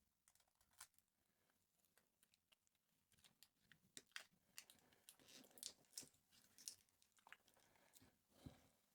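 Faint crinkling, clicking and tearing of Kapton tape being pulled off its roll and handled, with small clicks of parts handled on the bench, busiest in the middle and ending in a soft thump near the end.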